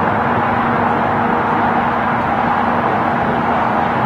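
Steady highway traffic: tyre noise from cars and tractor-trailers, with a faint steady engine hum underneath.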